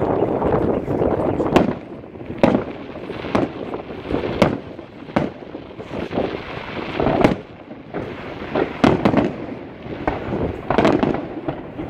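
Aerial firework shells bursting: a dense crackling at first, then a string of sharp booms about a second apart, with crackling stars between them.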